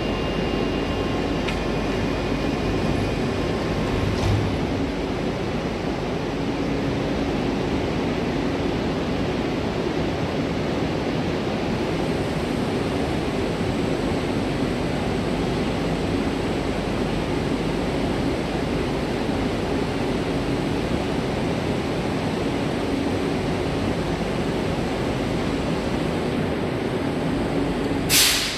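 Steady rumble of an electric commuter train pulling slowly into the platform, with a faint high whine joining about twelve seconds in. A single sharp knock comes just before the end.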